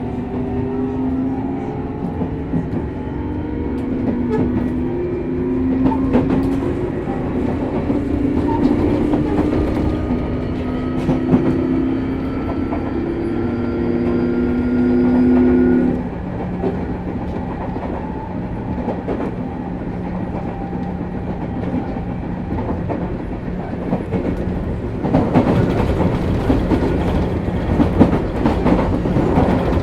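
Hitachi GTO-thyristor VVVF inverter and traction motors of a Sotetsu New 7000 series electric train accelerating. The whine rises in steps and jumps in pitch, then cuts off suddenly about halfway through as power is shut off. The train then coasts with a steady low hum and wheel rumble, and rail-joint clatter grows louder in the last few seconds.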